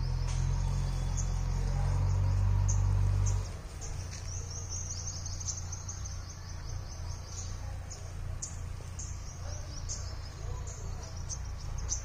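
Small birds in a flowering tree giving quick, high-pitched chirps and trills, over and over. A low steady hum underneath is the loudest sound for the first three and a half seconds, then stops abruptly.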